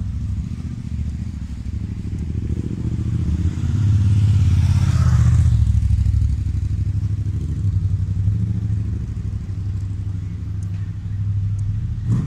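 Motor vehicle engine rumbling low and steadily in street traffic, swelling louder for a couple of seconds around the middle.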